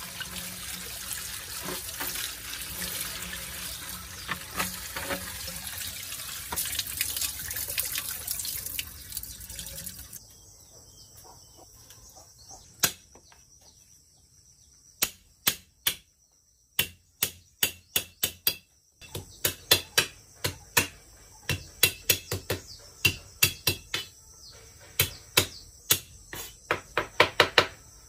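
Water running and splashing for about the first ten seconds, then it stops. A knife begins chopping on a cutting board, a few scattered strikes at first, then a quick steady run of about three a second.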